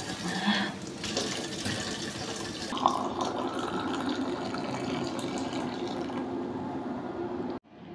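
Water poured in a thin stream into a ceramic mug of black coffee, splashing and frothing steadily. It cuts off suddenly near the end.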